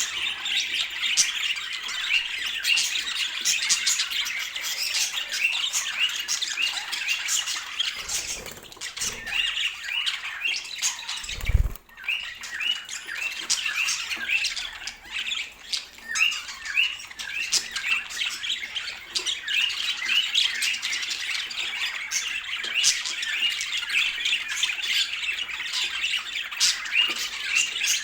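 A flock of budgerigars chattering and squawking, a dense run of short high chirps and calls, with a brief low thump about halfway through.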